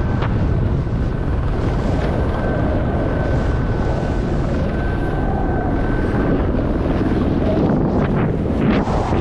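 Wind rushing over a body-mounted camera's microphone as a snowboard runs fast down a steep snow slope, the board hissing and scraping over the snow. A faint steady whistle sits under the rush for the first six seconds, and a few sharper scrapes come near the end.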